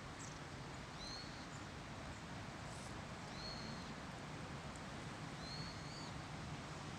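A small bird calling: three short, high, arched calls about two and a half seconds apart, over a steady background hiss.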